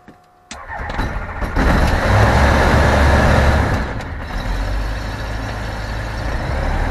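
Ikarus C42 ultralight's engine being started, heard from inside the cockpit: the starter cranks about half a second in, the engine catches after about a second, runs louder for a couple of seconds, then settles to a steady idle about four seconds in.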